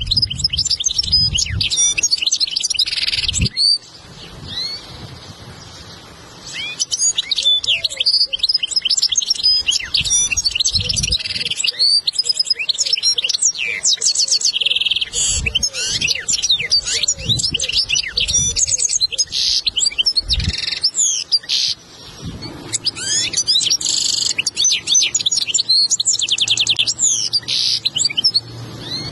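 European goldfinch singing a long, fast twittering song of chirps, trills and buzzy notes. It is a recorded tutor song of the kind played to teach young goldfinches to sing. The song breaks off for a couple of seconds about four seconds in and dips briefly near the end, with a few low bumps underneath.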